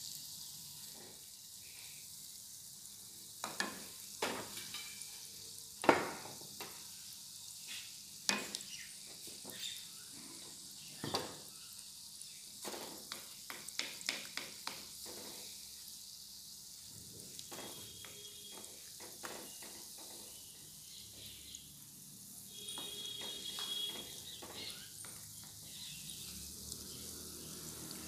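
Gulab jamun balls deep-frying in oil on a low flame in a non-stick wok: a steady, faint sizzle. Scattered sharp clicks and taps come from the wooden spatula turning the balls against the pan.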